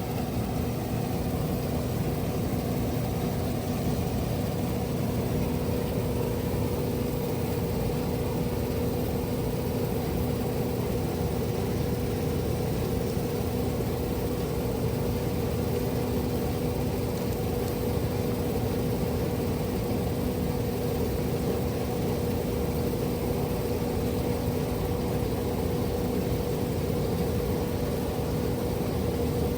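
Heavy farm machinery running steadily, a constant engine hum with a steady drone under it and no change in pace.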